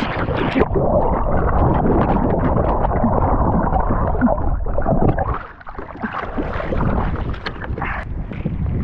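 Water splashing and sloshing around a person wading in, with a brief lull about five and a half seconds in.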